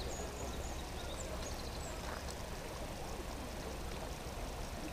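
Outdoor ambience: a steady low rumble with a few faint, short bird chirps in the first couple of seconds.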